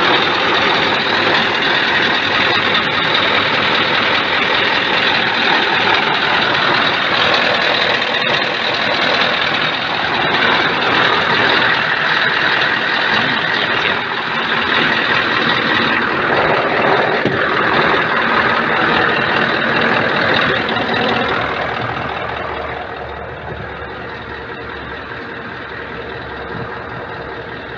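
Scania R580's 16-litre V8 diesel running steadily, loud when heard close by beside the chassis behind the cab. About 22 seconds in it turns quieter and more muffled, heard from inside the cab.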